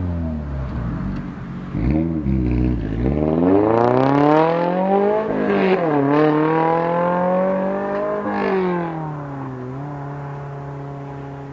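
2022 Toyota GR86's 2.4-litre flat-four engine revved through an RES stainless steel valved cat-back exhaust: the revs fall, a short blip follows, then two longer climbs that each drop back, and it settles to a steady idle near the end.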